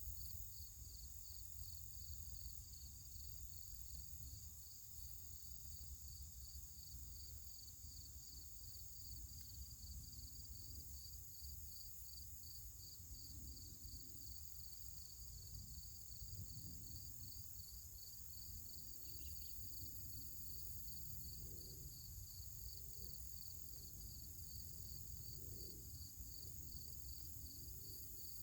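Insects, likely crickets, chirping steadily in the background, a high pulsing chirp about two to three times a second over a continuous high buzz, with a low rumble of wind or handling noise underneath.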